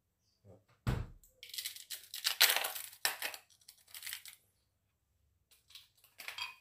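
A thump about a second in, then a plastic bag of ice crinkling and rustling as it is handled and worked open, loudest in the middle. Near the end, ice cubes rattle out of the bag into a glass blender jar.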